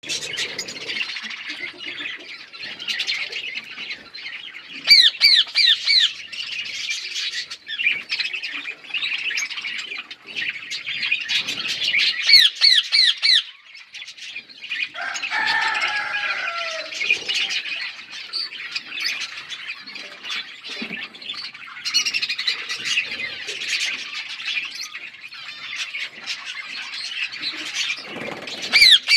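Several pet parrots chattering and chirping over one another, with loud bursts of rapid, repeated shrill calls about five seconds in, around twelve seconds and at the very end, and a lower squawk that falls in pitch around fifteen seconds.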